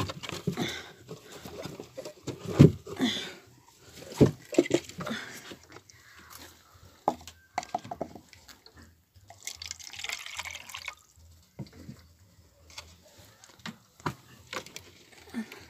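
Water being poured from a plastic bottle into a rabbit's drinking cup, dripping and splashing, among scattered knocks of plastic and wood as the cup and bottle are handled in the hutch.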